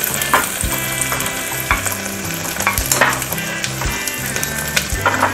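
Sliced onions, chillies and whole spices sizzling steadily in hot oil in an open pressure cooker, with a few light clicks.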